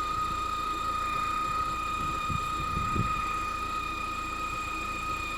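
Lada Vesta 1.8-litre engine running, with a steady high-pitched whistle from the alternator side holding one unchanging pitch over the low engine hum.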